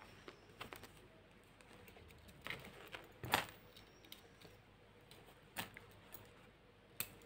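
A few faint, scattered clicks of pearl beads and a crochet hook being handled as crochet thread is hooked into a beaded strip, the loudest about three and a half seconds in.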